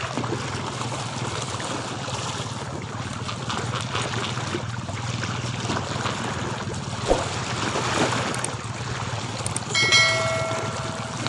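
Sea water lapping and sloshing steadily below the pier. About ten seconds in, a short electronic chime sounds for about a second.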